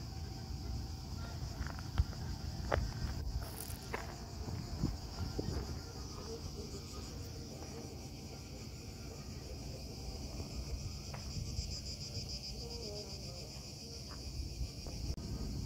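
Cicadas in pine trees buzzing in a steady high chorus that pulses a little in places, over a low rumble.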